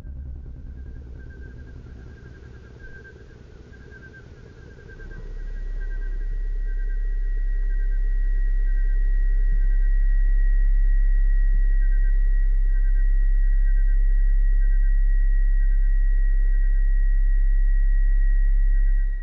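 A deep steady hum that fades in about five seconds in and then holds, with a thin, steady high tone above it and a faint chirp repeating at an even pace.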